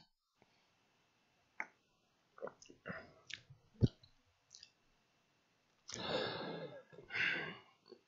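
A few faint, short clicks through a headset microphone, the sharpest a little under four seconds in, then two breaths near the end just before speech resumes.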